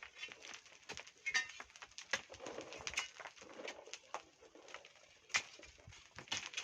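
Irregular sharp clicks and knocks, with a dove cooing softly in the middle.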